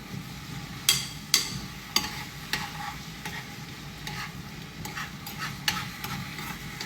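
A utensil stirring in a pan on the stove, with irregular clinks and scrapes against the metal. The sharpest knocks come about a second in and again at two seconds.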